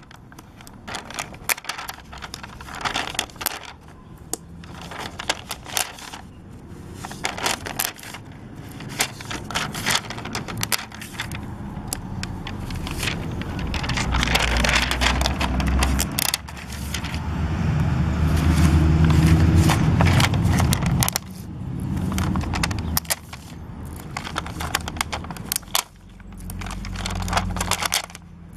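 Handling noise: irregular clicks and crackles, with a low rumble that swells through the middle and dies away about two-thirds of the way through.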